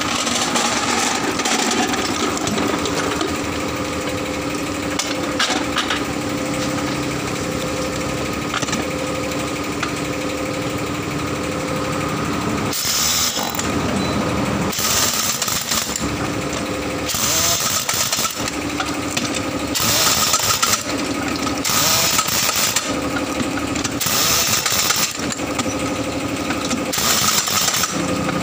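A steady machine hum, then from about halfway a heavy trolley-mounted pneumatic impact wrench hammers on tractor wheel nuts in short bursts of about a second, roughly seven times, with the hum continuing between them.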